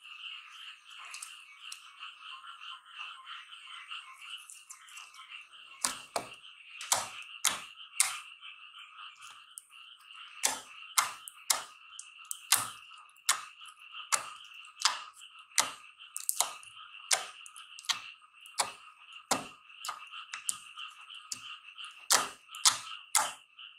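Slime being squeezed and pressed by hand, popping in sharp clicks about twice a second from about six seconds in, over a steady high background chorus.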